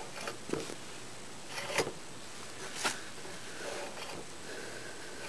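Hands working the handle and control cable of a rusty manual lawn edger: a few short rasping scrapes of metal and cable being moved.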